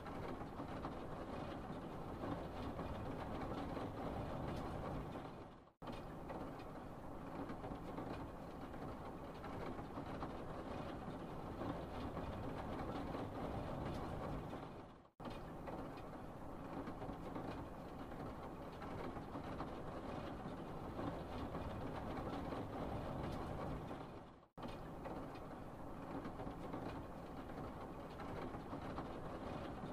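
Steady low background rumble, with no clear tones or clicks, that fades out to silence and comes straight back three times at even spacing.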